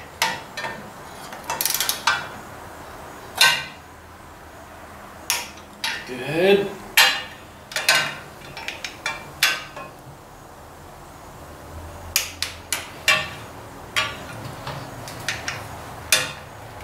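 Metal hand tools, wrenches and sockets, clinking and clicking against bolts as they are tightened: scattered sharp knocks about a second apart, with a quicker run of clicks about 12 to 13 seconds in.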